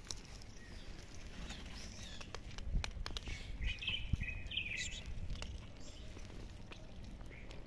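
A cat crunching dry kibble close up: a run of small, sharp crackles and clicks. A brief high chirping sound comes about four seconds in.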